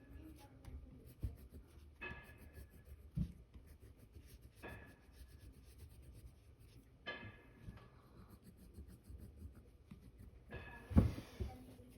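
Colouring on drawing paper: quick scratchy strokes of a colour pencil or crayon, with a sharper stroke every two to three seconds and a few soft knocks, the loudest knock about eleven seconds in.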